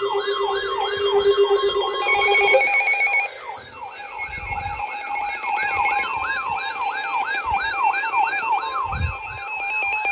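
Several emergency alert tones sounding at once for two simultaneous warnings: a rapidly repeating sweeping tone, about three sweeps a second, layered over steady attention tones and higher warbling and pulsing beeps. A couple of low thumps come in partway through.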